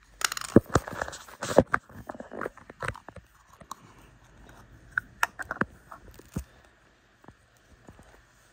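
Close handling noise: crackly rubbing and sharp clicks as a plush toy and fingers brush against the microphone. The noise is dense for the first three seconds, then thins to scattered taps.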